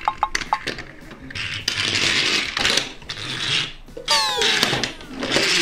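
Plastic toy car's wheels rolling and rubbing across a glass tabletop as it is pushed back and forth, with a short falling whistle-like tone about four seconds in.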